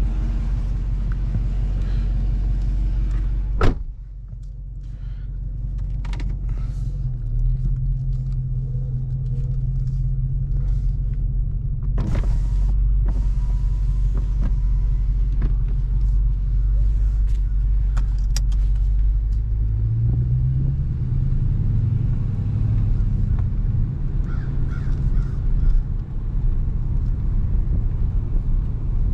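Dodge Charger R/T's 5.7-litre V8 running steadily, just after start-up, with a low even note. A sharp knock about four seconds in is the loudest moment, and a few light clicks follow. The engine note steps up and rises around twenty seconds in as it picks up revs.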